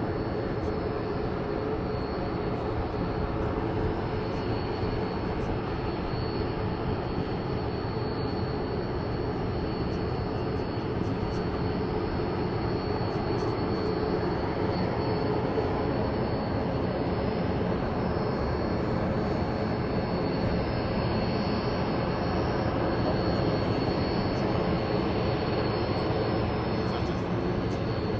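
AG600 amphibious aircraft's four turboprop engines running as it taxis on the water, a steady propeller drone that grows a little louder in the second half.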